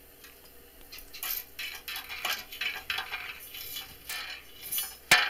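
Light metal clinks and scrapes as thin steel stock and the steel bars of a trap gate frame are handled and set down on brick pavers, with one sharp clank near the end.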